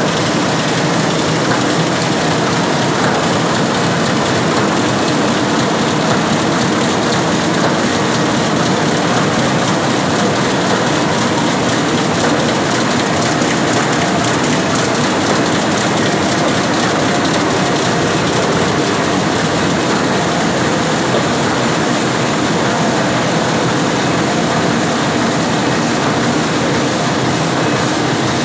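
KBA 104 eight-colour sheetfed offset printing press running, a loud, steady mechanical noise that does not let up.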